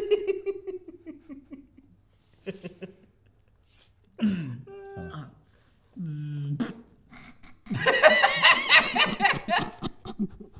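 Short vocal noises made with the mouth, including a brief steady hum, as a person imitates a light bulb burning out. About eight seconds in, a loud burst of laughter from several people.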